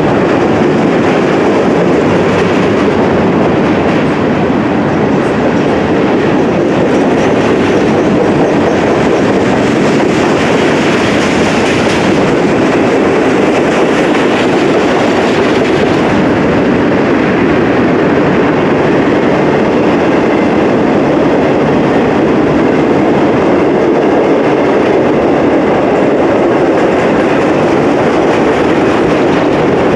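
Long freight train's cars rolling steadily past at close range, a continuous loud rumble of steel wheels on rail with clickety-clack over the rail joints.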